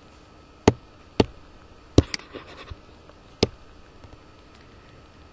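Five sharp clicks at uneven intervals from a computer pointing device, with a faint brief crackle after the fourth, made while editing handwritten notes on screen.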